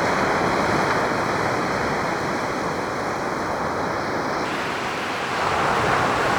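Steady hiss of a noise test recorded through a camera's mini-jack microphone input. For about the first four and a half seconds a few narrow bands of its pitch are missing, the frequency dropouts the G9II's input is blamed for; then the hiss runs on full and gets slightly louder near the end.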